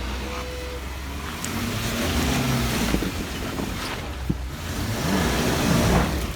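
2018 Jeep Wrangler JKU Sport's 3.6-litre V6 revving in swells under load as it climbs a rocky obstacle, loudest near the end before it eases off, with a couple of sharp knocks partway through.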